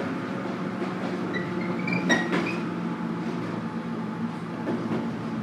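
Inside a JR Kyushu 103 series motor car (KuMoHa 103-1514): the train's steady low hum. About a second and a half in, a short high tone steps upward, with a sharp click in the middle of it.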